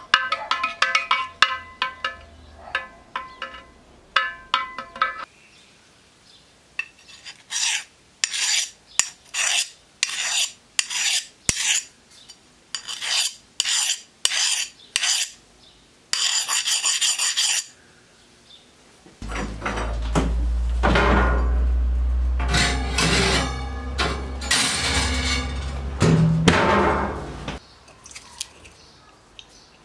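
Steel knife blade being worked by hand after quenching. A few light metal clinks come first, then a run of short scraping strokes, about one a second. Later there is a louder steady stretch of several seconds with a low rumble under it.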